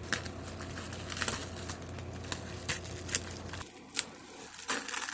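Plastic packaging crinkling and rustling as a collectible anime figure is handled and unwrapped, with scattered small clicks and crackles.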